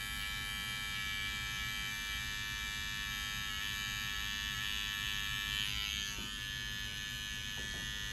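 Electric hair clippers buzzing steadily as they cut along the side of a head.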